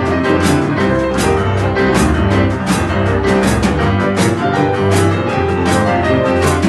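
Boogie-woogie piano played on stage pianos, with a rolling left-hand bass line and a drummer keeping a steady beat on a snare drum.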